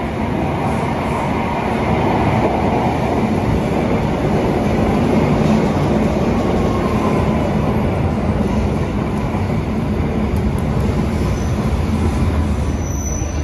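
Koleje Mazowieckie EN57AL electric multiple unit pulling into the underground platform and running past close by, a loud steady rail rumble that swells over the first couple of seconds.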